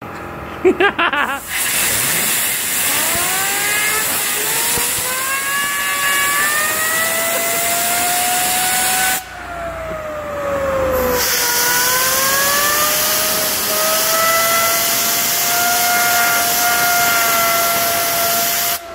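A workshop air blow gun hisses onto a handheld fidget spinner, and the spinner's whine climbs steadily in pitch as it spins up, after a few short air bursts at the start. About nine seconds in the air stops and the whine falls as the spinner coasts. A second blast spins it back up to a steady high whine.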